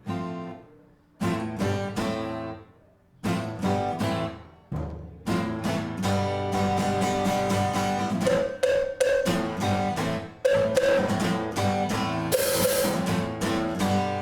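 A band starts a song: a guitar plays the opening chords alone, short hits with pauses between them, then bass and drums come in about five seconds in and the music runs on without breaks, with a cymbal crash near the end.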